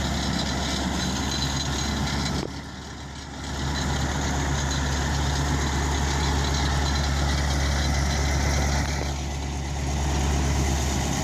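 New Holland TR96 combine's diesel engine idling steadily, with a brief drop in level for about a second a couple of seconds in.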